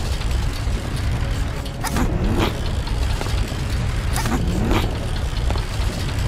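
Cartoon climbing sound effects over a steady low rumble: a sharp scraping swish about every two seconds, each followed by a short rising sound.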